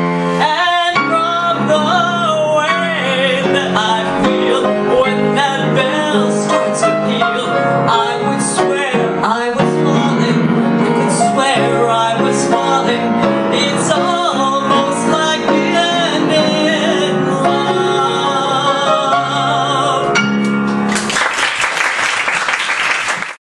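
A woman singing a Broadway show tune with instrumental accompaniment, ending on a held final note. Audience applause breaks out near the end.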